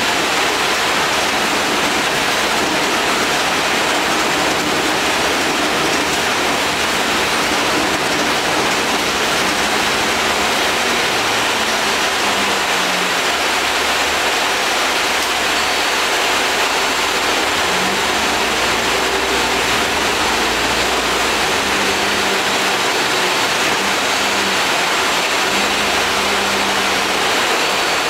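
Steady hiss of the air conditioning and running noise inside the lower deck of a moving Alexander Dennis Enviro 400 double-decker bus, with the engine's faint hum coming and going underneath.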